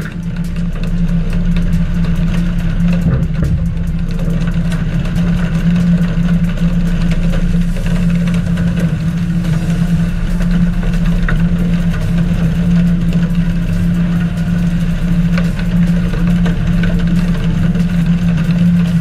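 Fishing boat's engine running steadily: a constant low drone at an even pitch.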